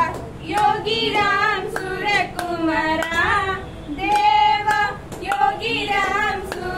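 Young female voices singing a devotional bhajan in unison into a microphone, with steady hand claps keeping the beat.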